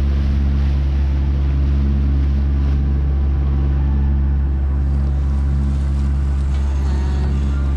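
A sailboat's auxiliary engine running steadily under way: an even hum over a heavy low rumble that does not change.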